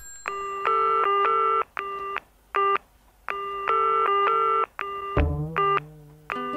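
Looped sampled telephone tones played as a musical rhythm: stacks of steady tones switching on and off in short, clipped pulses in a repeating pattern. A lower, slightly wavering tone comes in about five seconds in.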